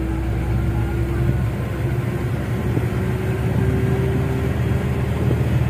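Steady engine and road rumble of a moving road vehicle, heard from inside, with a faint hum that rises slightly in pitch partway through.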